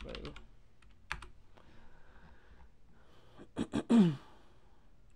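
Typing on a computer keyboard: a few scattered key clicks, then about three and a half seconds in a quick cluster of hard key strikes as the typed query is submitted. The strikes end in a short sound that falls in pitch.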